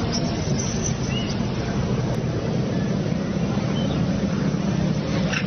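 Steady low mechanical hum, like a motor or engine running, with a couple of faint, short high squeaks over it.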